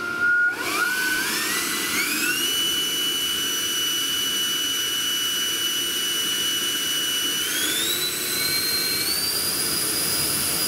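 JetFan 110 electric ducted fan, with a 780KV motor on a 14S pack, spooling up on a ground run-up after a brief tone. It gives a rising whine that settles into a steady high-pitched whine, then is throttled up again about seven and a half seconds in to a higher steady pitch.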